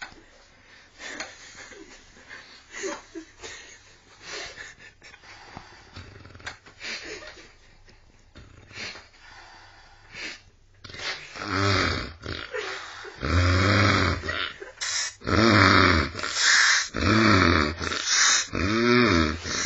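A sleeper snoring: faint, irregular snorts at first, then about halfway through loud, drawn-out pitched snores that rise and fall, one every second or two, sounding almost like an animal.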